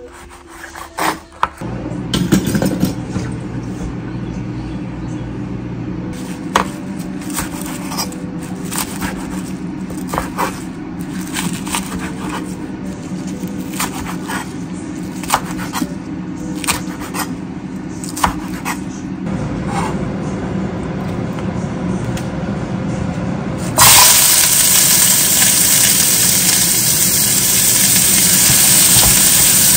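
Knife chopping on a wooden cutting board, irregular sharp knocks. About 24 s in, diced bacon hits a hot frying pan and starts sizzling loudly and steadily.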